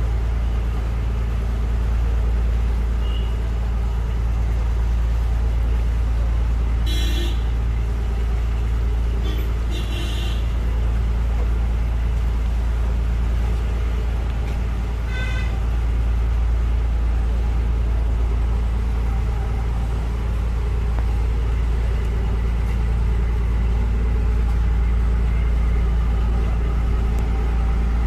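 An engine running with a steady low drone. Three brief high-pitched tones stand out above it: about a quarter, a third and halfway through.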